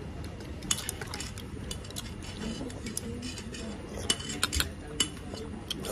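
Metal spoon and chopsticks clinking and scraping against a ceramic soup bowl while eating noodles: scattered light clicks, a few in quick clusters.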